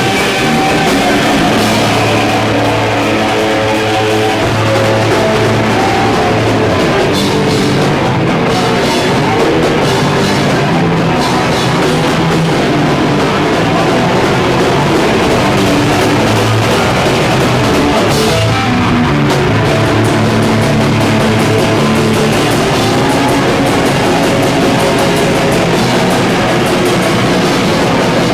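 Hardcore punk band playing live, with distorted guitar, bass and drum kit driving loud and dense without a break.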